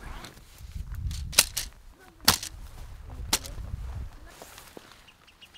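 Nylon tent being pulled out and shaken open, with fabric rustling and three sharp snaps about a second apart.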